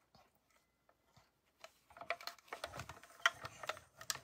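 Acrylic cutting plates clicking and knocking as a die-cut sandwich is fed into a hand-cranked Mini Cut & Emboss die-cutting machine. Faint at first, then a run of irregular sharp clicks from about halfway, with a low rumble joining as the crank starts to turn.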